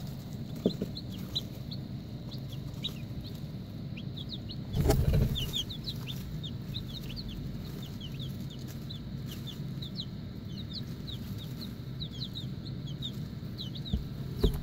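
A brood of baby chicks peeping, with many short high cheeps overlapping, over a steady low hum. A brief louder noise comes about five seconds in.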